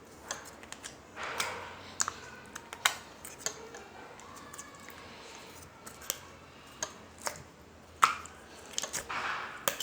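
Slime being handled: irregular sharp sticky clicks and pops, the loudest about eight seconds in, with two short squelching swells, about a second in and near the end.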